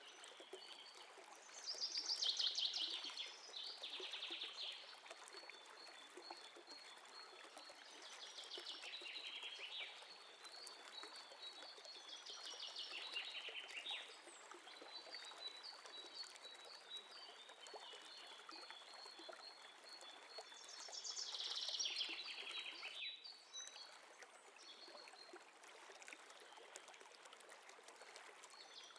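Chopped onions sizzling faintly in oil in a nonstick frying pan, with short bursts of scraping every few seconds as a wooden spatula stirs them.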